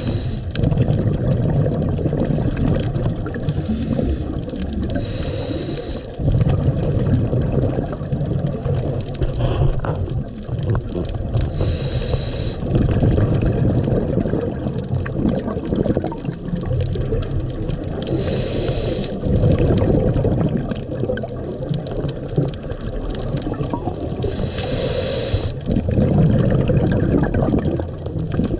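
Underwater camera audio: a constant low rumble of water moving around the camera housing. About every six seconds there is a short hissing bubble burst, a scuba diver's regulator breathing.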